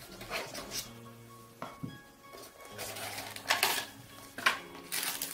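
Cardboard box and packaging being handled during unboxing: several short scrapes and rustles, the loudest about three and a half seconds in and again near the end, over soft background music with steady held notes.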